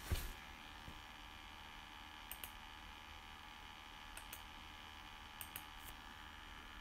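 A few faint computer mouse clicks, short double ticks spread through, over a low steady hiss and hum.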